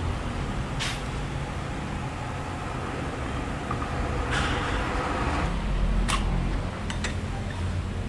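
A few sharp clicks and a brief scraping sound about halfway through as CVT pulley parts are handled and fitted on a scooter's transmission, over a steady low hum.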